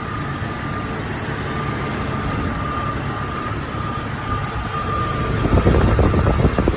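Jeep Cherokee engine idling steadily, warmed up to near normal temperature while air is bled out of its cooling system, with a thin steady whine over the rumble. About five seconds in the sound grows louder and rougher for over a second.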